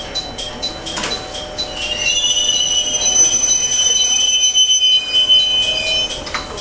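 Series E721-500 electric train braking to a stop, its brakes and wheels giving a loud, steady high-pitched squeal from about two seconds in. The squeal cuts off just after six seconds as the train halts.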